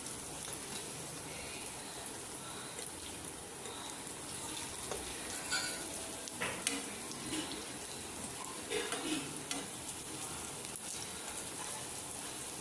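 Batter-coated breadfruit fritters sizzling in shallow oil in a nonstick frying pan. A few light taps and scrapes come from a utensil against the pan around the middle, as the pieces are turned over.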